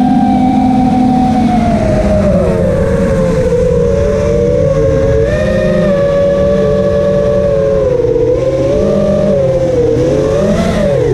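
The T-Motor F40 Pro II 2600kv brushless motors and propellers of a 5-inch FPV quadcopter, heard from its onboard camera: a loud whine of several layered tones that sags and climbs in pitch as the throttle changes, with a quick dip and rise near the end.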